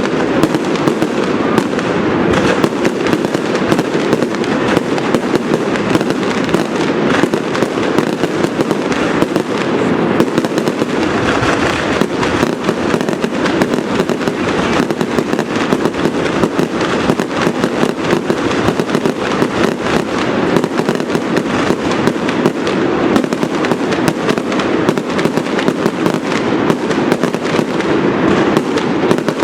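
Fireworks display: a dense, unbroken barrage of rapid bangs and crackles with no let-up.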